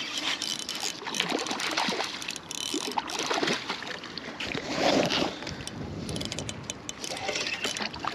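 Water splashing and sloshing as a hooked salmon trout thrashes near the surface while it is being landed, loudest about five seconds in.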